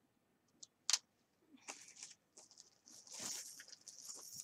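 Two sharp clicks, then rustling and crinkling of a plastic bag with small clicks as jewelry is rummaged through, growing louder near the end.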